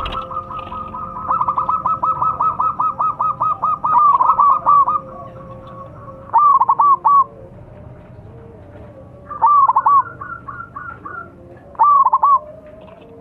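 Zebra dove cooing: a few seconds of rapid repeated coo notes, then four short loud phrases of three or four notes each, about two to three seconds apart.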